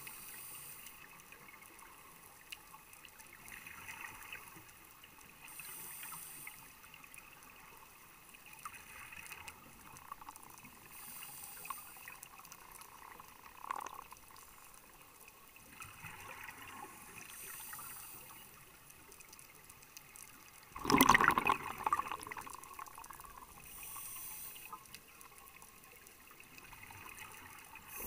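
Underwater sound of a scuba diver breathing through a regulator: a breath about every six seconds, with bubbles trickling and gurgling. One much louder burst of noise about three-quarters of the way through.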